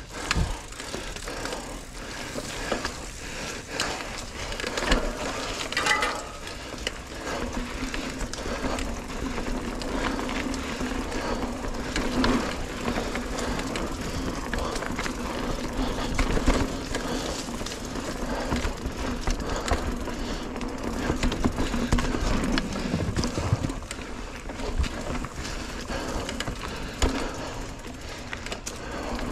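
Mountain bike ridden down a dirt singletrack: tyres rolling over dirt, leaves and roots, with frequent knocks and rattles from the bike over bumps. A steady hum joins about seven seconds in.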